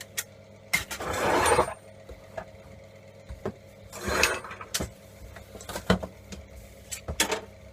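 Knocks and clatter of metal parts being handled as a MIG welding torch is taken apart, with two short scraping noises about a second in and about four seconds in, over the steady hum of a workshop extraction fan.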